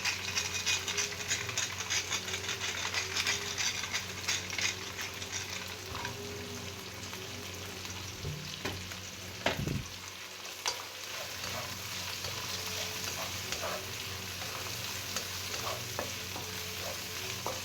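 Pork belly frying with onion and garlic in a pan, sizzling and crackling as it is stirred. The crackle is densest in the first few seconds, and there is a sharp knock about halfway through.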